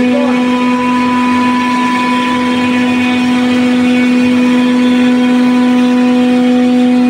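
CNC router spindle running with a steady whine as its grooving cutter mills channels into a drywall board, over the even rushing noise of the cut.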